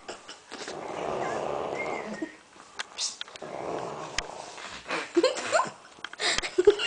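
A woman snoring loudly: two long snores, each about a second and a half, a second or so apart. Short clicks and small squeaky sounds follow near the end.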